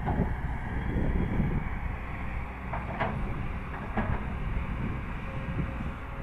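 Heavy diesel earthmoving machinery running with a steady low rumble, louder in the first second and a half, and two sharp metallic clanks about three and four seconds in.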